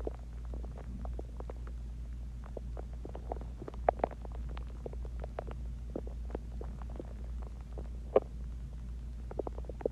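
A person's stomach growling and gurgling as it digests a meal of Chinese food and water: a run of many short pops and gurgles, with two louder ones about four seconds in and about eight seconds in, over a steady low hum.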